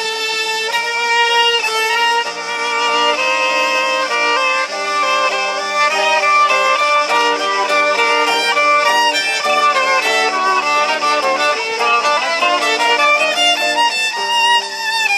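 Violin playing a continuous melody of held, bowed notes, accompanied by an electric guitar played through a small amplifier.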